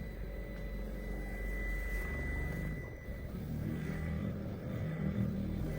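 Cordless battery-powered car polisher running steadily after being turned up to a higher speed, its pad spinning on the paint. A thin high whine sits over the motor's low hum and fades out about three seconds in.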